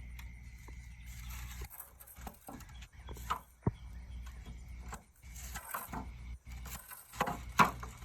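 Scattered knocks and clicks of work on a gazebo being assembled, with a steady low hum during the first couple of seconds and a sharp click about midway.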